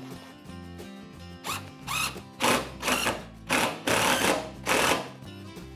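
Cordless power driver sinking screws through a carpeted plywood deck into the framing, in about five short runs from about a second and a half in until about five seconds in, over background music.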